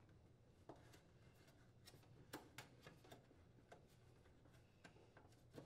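Near silence with a few faint, scattered soft taps and rubs: a new rubber exhaust gasket being pressed by hand onto a dryer's sheet-metal exhaust duct.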